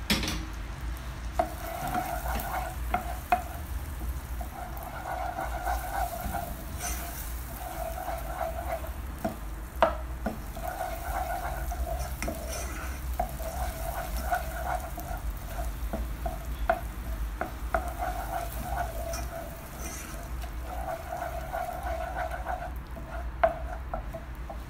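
Butter melting and sizzling in hot caramel while a bamboo spoon stirs it round a pot, scraping the pan in repeated strokes with a few sharp knocks against the pot.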